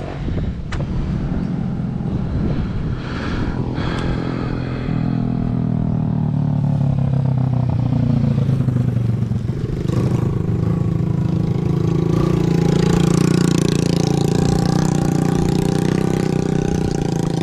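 Motorcycle engine running while riding. Its pitch falls through the middle, then it picks up and runs louder and steady through the second half.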